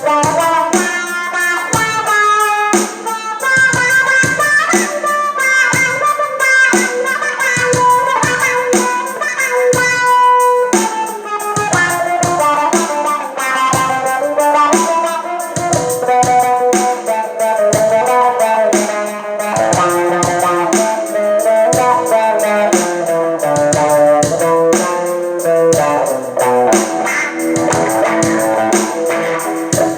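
Electric guitar played through a wah-wah pedal, picking a continuous run of melodic notes.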